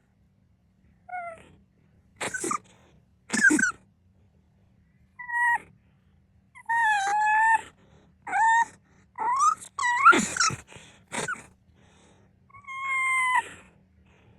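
A small pet sneezing again and again, sharp sneezes scattered among short high-pitched cries, with brief silences between them.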